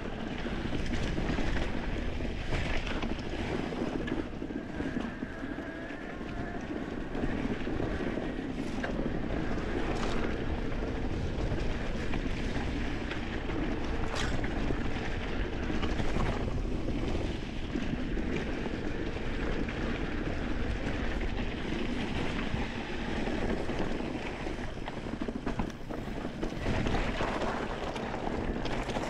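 Mountain bike rolling over rocky gravel singletrack: steady wind rush on the camera microphone over the noise of the tyres and bike, with a few sharp knocks from rocks and the bike rattling.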